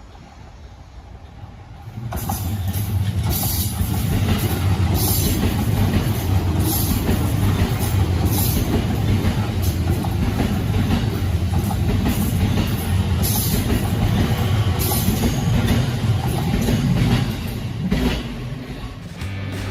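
A train passing close by a level crossing: the loud rumble of wheels on rail starts about two seconds in, with repeated clacks as the wheels cross the rail joints, and dies away near the end.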